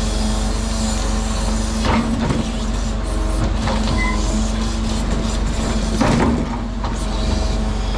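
Mercedes-Benz Arocs truck's diesel engine running steadily, with two short, louder noises about two seconds in and again about six seconds in.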